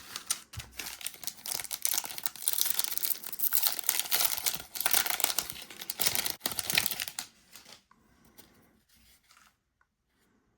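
Plastic wrapper of a Donruss Optic football card pack being ripped open and crinkled, with dense crackling for about seven seconds, then dying down to faint handling noise.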